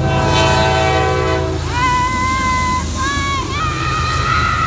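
Diesel freight locomotive's air horn sounding a long, loud multi-note chord, cutting off about a second and a half in, over the steady low drone of the passing train. Shorter, higher held tones follow in the second half.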